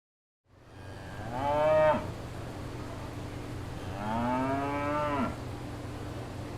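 Cow mooing twice over a steady low hum: a short, loud moo, then a longer, slightly quieter one.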